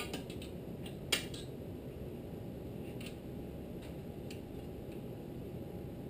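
A few light clicks and taps of metal and rubber parts being handled, the loudest about a second in, as a rubber fuel line is tucked in behind a small engine's flywheel and its sheet-metal shield. A steady low hum runs underneath.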